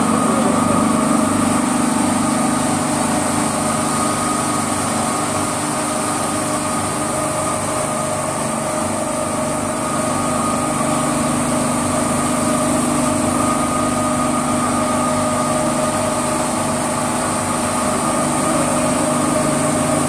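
MAXIS automatic carpet washing machine running steadily: an even motor hum with several steady tones and a high hiss over it.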